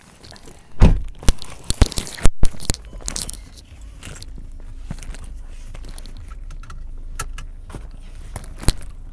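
Clicks, knocks and scrapes of a phone being handled against a leather car seat, then the steady low rumble of the car's cabin as it drives.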